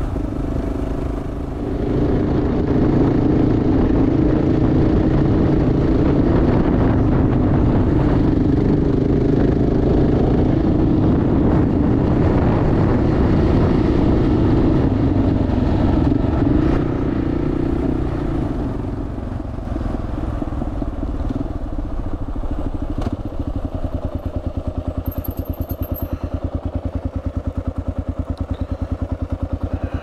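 Kawasaki KLR650's single-cylinder four-stroke engine running under steady throttle, then easing off a little past halfway and settling to a slower, even beat.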